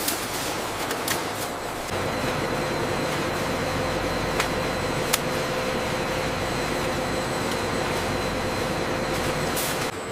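Steady industrial machinery hum. About two seconds in a steadier, higher hum joins it, and two sharp clicks come around the middle.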